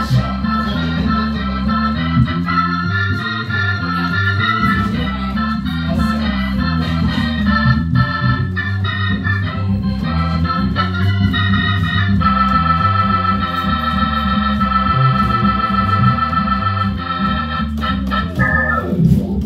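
Crumar Mojo Dual clonewheel organ playing blues through a Motion Sound Pro 145 rotary speaker, with a low bass line reinforced through a bass amp. Busy chord playing gives way, a little past halfway, to one chord held for several seconds with a steady rotary waver.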